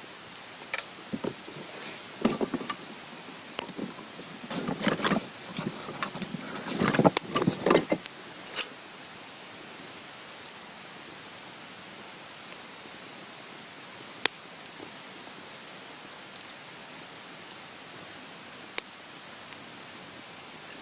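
Rustling and clattering of things being handled, in several bursts over the first eight seconds, then a steady hiss broken by a few sharp clicks.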